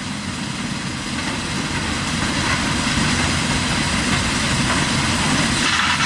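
Steady heavy-machinery noise: a Kobelco tracked excavator's diesel engine working under hydraulic load as it lifts and swings a loaded bucket, with a Rubblemaster mobile crusher running alongside.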